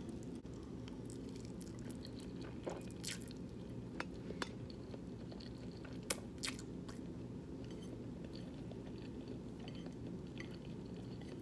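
A person chewing a mouthful of spaghetti and meatballs, with scattered short wet mouth clicks over a steady low hum.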